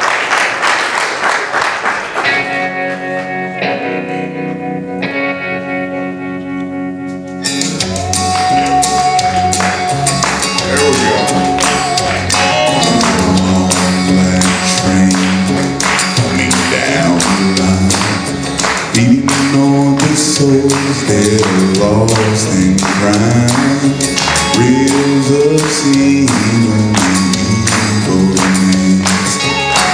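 Gospel music: sustained instrumental chords open, then about seven seconds in a steady beat comes in and a male vocal group starts singing a country-gospel song over the accompaniment, the lead voice growing stronger as it goes.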